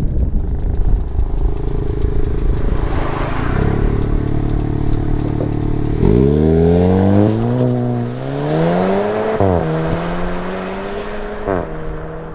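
VW Golf GTI TCR's turbocharged 2.0-litre four-cylinder engine and exhaust running steadily, then accelerating hard from about six seconds in: the pitch climbs through a gear change, drops sharply near the ten-second mark and settles to steady running with a brief blip near the end.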